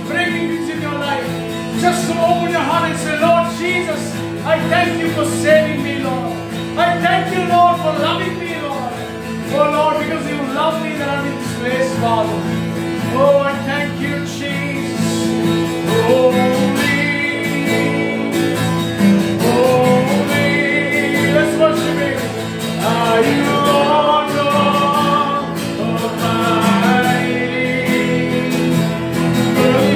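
A song: a voice singing a melody over guitar accompaniment.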